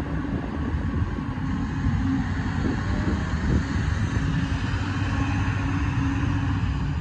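Cummins diesel engine of a Hyundai R210 excavator running steadily while the upper structure slews round on its swing bearing. A steady hum sits over the engine rumble from about two seconds in.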